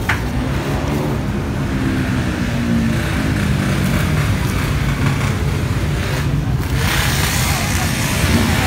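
Street traffic: the steady low rumble of passing vehicle engines, with a louder rushing noise building about seven seconds in.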